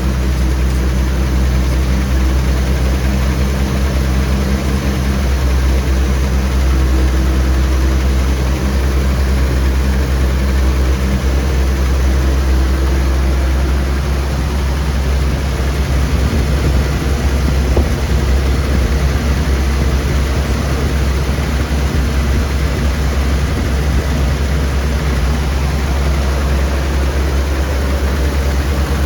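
1982 Chevrolet C10 truck engine idling steadily on a freshly installed, untuned Rochester 2SE replacement carburetor.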